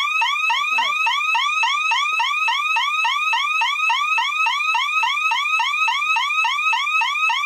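Electronic alarm siren on a DSC PC1515 security system sounding a burglary alarm, because the entry delay ran out after the delay motion detector tripped without the code being entered. It goes in a loud, steady yelp of quick rising sweeps, about four or five a second.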